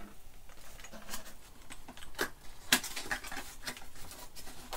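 Cardboard box and plastic water bottle being handled as the box is opened and the bottle taken out: irregular clicks, taps and rustles, the sharpest a little past halfway.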